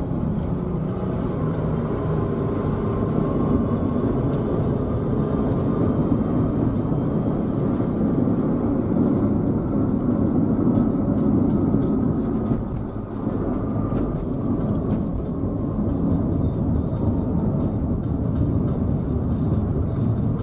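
Road and engine noise inside a moving car's cabin: a steady low rumble with tyre noise, easing briefly about two-thirds of the way through before picking up again.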